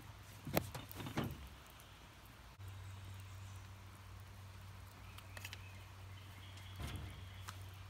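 Two sharp clacks about half a second apart, near the start, as a plastic lid is pressed onto a coffee canister, then a few faint sharp crackles from a wood fire burning in a tin-can hobo stove, over a low steady hum that comes in a couple of seconds in.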